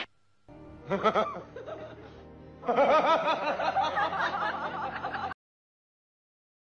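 A puppy howling in a wavering, wobbling voice, faint at first and louder from about three seconds in, then cutting off abruptly.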